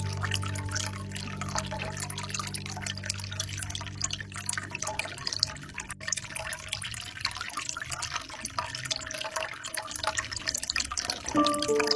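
Water trickling and dripping from a bamboo spout into a pool, a steady splashing patter. Soft, low held music tones fade out over the first few seconds, and new higher music notes come in just before the end.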